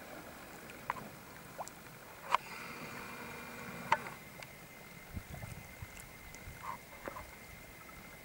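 Small waves lapping against shore rocks, with a few sharp slaps and plops, the loudest about two and four seconds in.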